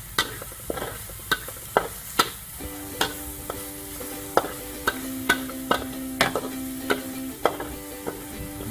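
A metal spatula scraping and clacking against a steel wok while stir-frying sliced lemongrass and leaves over a low sizzle. The strikes come in quick, irregular strokes, about one or two a second.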